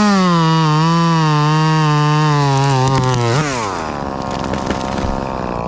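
Chainsaw run at full throttle, its pitch sagging a little as it works through the wood. About three and a half seconds in the throttle is released and the engine drops back, leaving a quieter steady hum.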